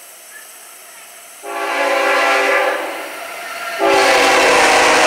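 Freight locomotive's multi-chime air horn sounding two blasts. The first starts about a second and a half in; the second, louder, comes about four seconds in with a low rumble of the train beneath it.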